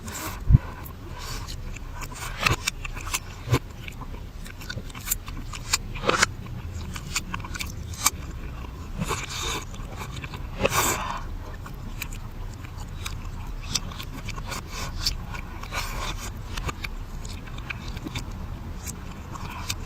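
Close-miked mukbang eating sounds played in reverse: irregular crunchy chewing clicks and crackles over a low steady hum.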